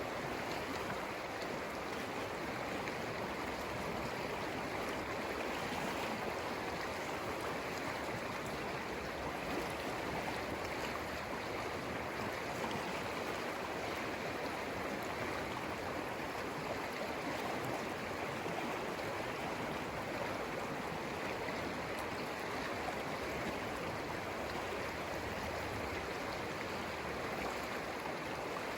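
The Conejos River flowing: a steady, even rush of moving water with no breaks or changes.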